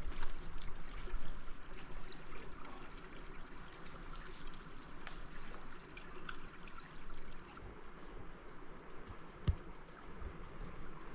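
River water trickling, with a steady high insect whine and a faint, rapidly repeated insect chirping over it.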